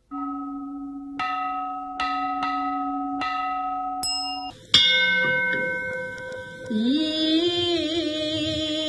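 A metal ritual bell rings and is struck several times, each strike adding bright ringing overtones, with the loudest strike about five seconds in. About seven seconds in, a woman's voice begins a Buddhist chant on a held, wavering pitch.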